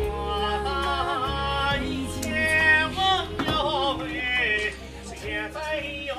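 A high, ornamented voice singing a folk song, sliding and wavering between held notes. A steady low hum runs underneath until about a second before the end.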